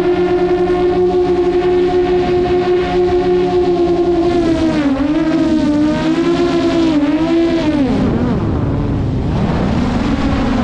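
DJI Mavic quadcopter's propellers and motors whining loudly and steadily. The pitch wavers from about halfway through, then dips low and climbs back near the end as the motor speed changes.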